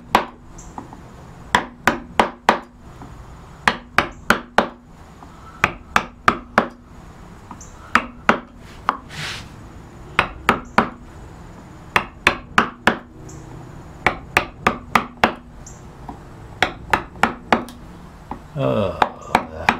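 Carving gouge tapped with a mallet into an oak board, sharp wooden knocks in short runs of three to five strikes with pauses between, each run setting a row of small curved gouge cuts.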